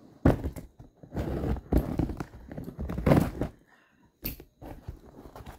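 Cardboard parcel box being torn open with a scooter key, the key scraping and ripping through the packing tape and flaps in a run of irregular rasping strokes. A short sharp click comes about four seconds in.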